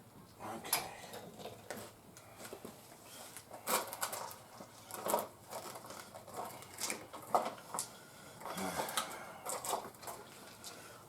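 Irregular metallic clicks, clinks and knocks of hand tools and hardware being handled, with a few short runs of quick clatter.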